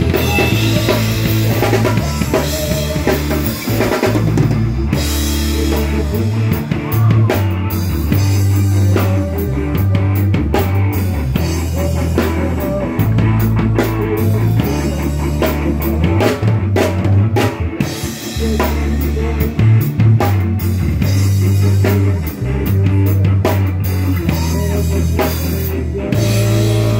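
A rock band playing live and loud: a drum kit keeping a steady beat with bass drum and snare, under electric guitar and a heavy bass line whose notes change every second or two.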